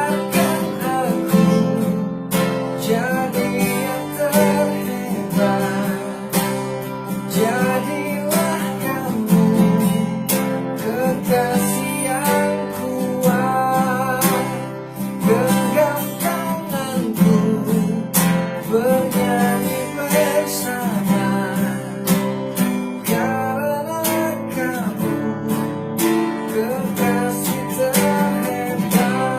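A man singing a slow pop song to a strummed acoustic guitar.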